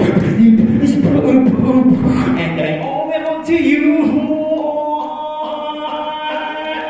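A man's solo vocal performance into a handheld microphone over a stage PA. For about three seconds it is rhythmic beatbox-style bass sounds, then it turns into a long held note that drifts slightly upward.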